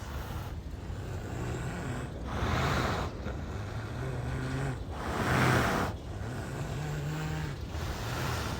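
A sleeping animal snoring: a low, rumbling snore with two louder breathy swells, about two and five seconds in.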